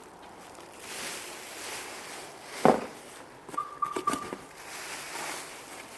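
Clear plastic dress bags rustling and crinkling as the dresses are handled. There is a sharp thump a little before halfway, then a few clicks with a brief squeak.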